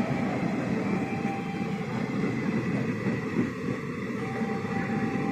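Tebhaga Express, an Indian Railways passenger train, running past with a steady rumble of its coaches rolling on the track.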